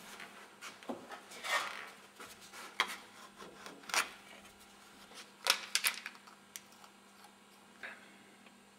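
Hand rubbing and scraping over a brass-and-tortoiseshell Boulle marquetry panel to clear off surplus engraving paste. The strokes are short and irregular, with a few sharp clicks, over a steady mains hum.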